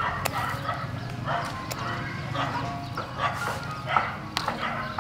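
Repeated short animal calls, a few every second, with a few sharp snips of scissors cutting tamarind stems.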